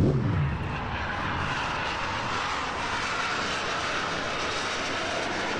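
A-4B Skyhawk's single J65 turbojet on a close, low fly-past: loudest right at the start, where its pitch drops quickly as it passes, then a steady jet roar as it flies away.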